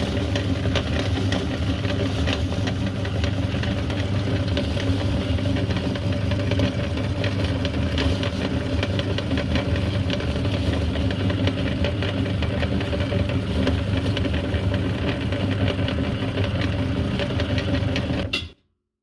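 Electric meat grinder motor running steadily with a constant hum and frequent small clicks as it grinds chocolate candy. It is switched off and stops suddenly near the end.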